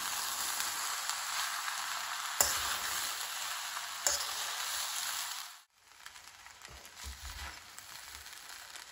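Vegetable fried rice sizzling in a pan on a gas flame as a steel slotted ladle stirs the sauces through, with two sharp clinks of the ladle against the pan. A little past halfway the sizzle drops off suddenly, then carries on much quieter with a few soft knocks.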